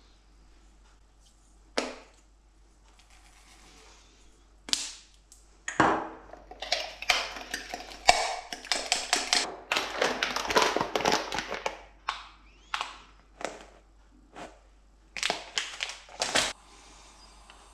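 Metal spoon beating egg mixture in a small glass bowl: a fast run of clinking, scraping strokes against the glass, with a single click before it and a few separate knocks near the end.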